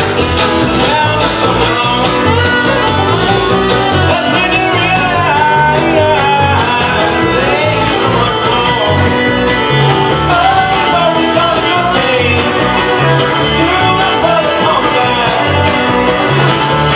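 A bluegrass-country string band playing live: upright bass plucking a steady low line under strummed guitar and banjo, with singing over the top.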